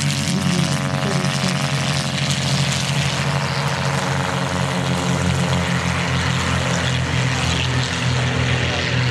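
Propeller-driven Zlin Z-42/Z-142 light aircraft, with six-cylinder inverted inline Avia piston engines, running in a steady drone. The engine note slides down in pitch over the first few seconds, then holds steady.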